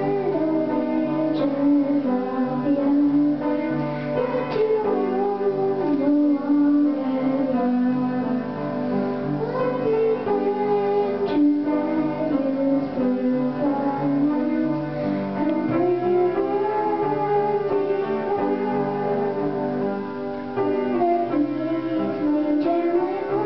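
A young girl singing a slow melody into a handheld microphone over instrumental accompaniment with piano.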